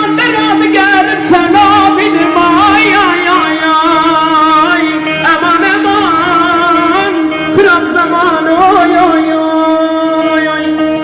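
Kurdish dengbêj singing in the uzun hava style: a solo voice in long, wavering, ornamented lines over a steady held drone note.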